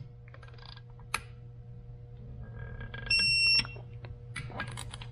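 Digital torque wrench beeping once, a steady high tone about half a second long about three seconds in, as a Subaru EJ25 case bolt is brought to the set 10 ft-lb on the first tightening pass. A few light clicks come before it.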